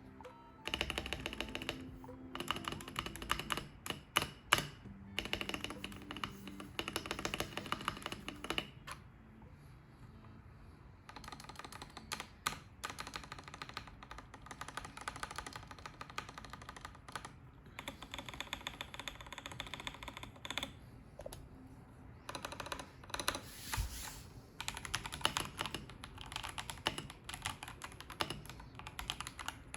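Typing sound test on an Akko 5075B Plus 75% mechanical keyboard with Akko CS Silver linear switches: runs of rapid keystroke clacks, easing off briefly about nine and twenty-one seconds in.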